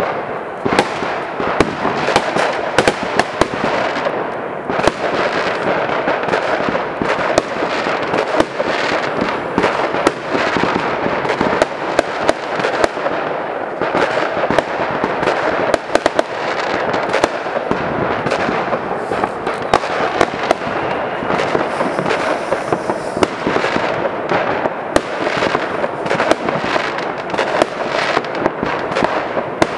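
Many fireworks and firecrackers going off at once from all around: a continuous dense crackle of bangs, cracks and pops with no break.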